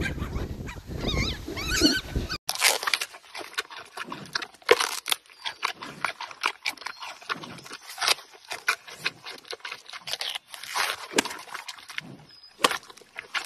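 A dog's high, wavering whines and yips for about the first two seconds. After that, a giant panda biting and chewing a fresh bamboo shoot: a long run of irregular crisp crunches and snaps, close up.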